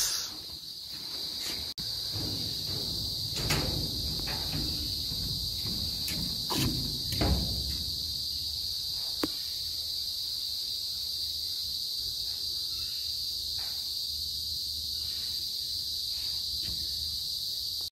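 Steady, high insect chorus, a constant chirring drone, with a few scattered knocks and low thuds in the first half.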